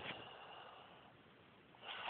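Near silence in the pause between loud snores: a faint breath fading away, then the next snore starting right at the very end.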